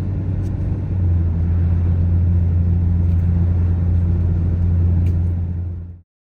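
Steady low rumble of road and engine noise from a moving car, heard from inside. It grows louder about a second in and cuts off abruptly near the end.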